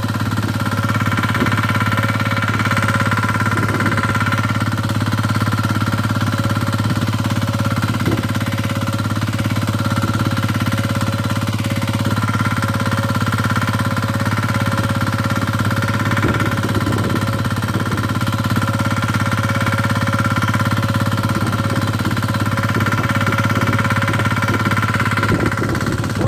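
Diesel walk-behind tractor engine running steadily under load as it pulls a plough through soft soil.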